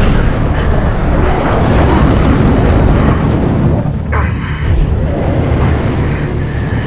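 A loud, continuous low rumble from a sound effect laid over the footage, dipping briefly about four seconds in.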